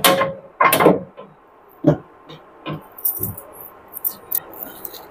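Kitchen chimney's mesh grease filter being pushed back into the hood: a sharp knock at the start and another just under a second in, then lighter knocks and clicks as it is seated.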